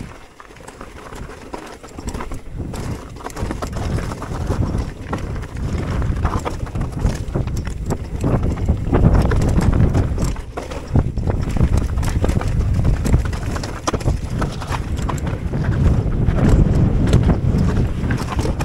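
Mountain bike descending a rocky trail: tyres crunching and clattering over stones and the bike rattling over the bumps, with wind rumbling on the microphone. It gets louder as speed builds through the first half.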